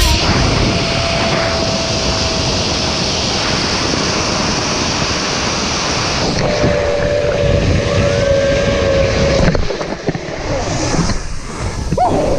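Wind rushing over the microphone of a camera riding a fast zipline, with a thin steady whine heard twice. The rush eases about ten seconds in as the rider slows toward the landing platform.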